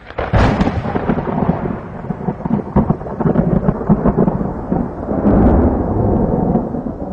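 Thunder: a sharp crack that rolls on as a long, loud, crackling rumble.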